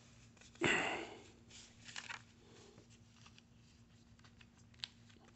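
Quiet handling of electrode pads and their lead wires: a brief rustle about a second in, then faint scattered clicks and taps, over a faint steady hum.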